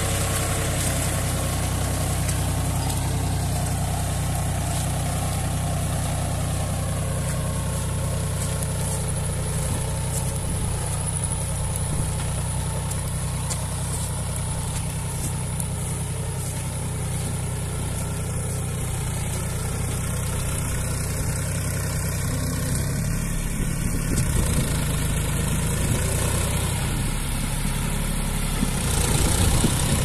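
John Deere 5045 tractor's three-cylinder diesel engine running steadily under load while pulling a disc plough through wet field soil, a little louder near the end.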